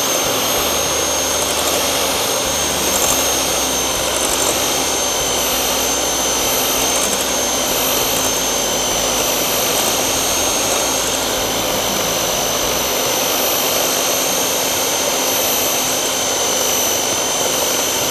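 Electric hand mixer running steadily, its twin beaters whipping eggs and sugar in a glass bowl: a constant motor whine with a steady high tone.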